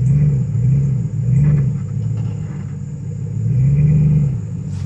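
Dodge Ram pickup's engine revving in repeated surges under heavy load as the truck pulls on a strap tied to a tree. The loudest and longest surge comes near the end.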